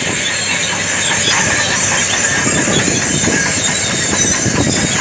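Crawler bulldozer's diesel engine running under load as it travels on its steel tracks pushing earth with its blade, a loud, steady mechanical din with a constant rattle.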